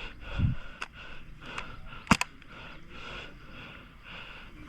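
A single sharp crack about two seconds in, typical of an airsoft gun firing, over a faint steady hiss with a few soft knocks and ticks.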